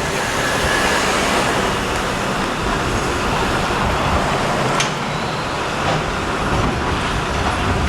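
Building demolition noise: a steady, dense wash of heavy-machinery and debris noise, with a sharp crack about five seconds in.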